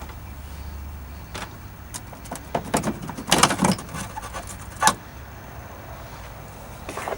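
Clicks and clatter from the lock and handle parts of a car door being worked by hand. The clatter bunches up in the middle and ends with one sharp click about five seconds in.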